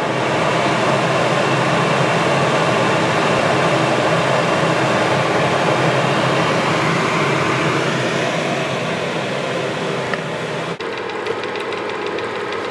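Small electric fan heater running, a steady rush of blown air. About eleven seconds in, the low rumble drops away.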